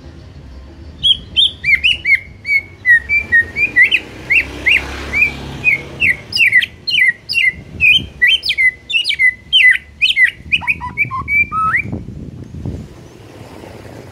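Caged white-rumped shama (murai batu) singing in full voice. It gives a fast, loud run of short, sharp whistled notes, about four a second, which starts about a second in and stops near the end.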